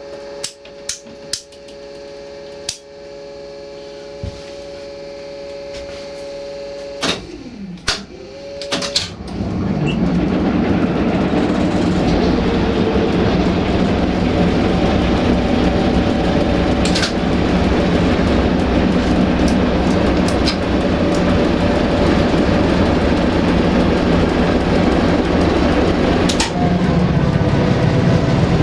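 LDH1250 diesel-hydraulic locomotive engine start-up heard from the cab: a few sharp clicks over a steady hum, a short falling whine about seven seconds in, then the diesel catches about nine seconds in and runs with a loud, steady rumble, its note shifting slightly near the end.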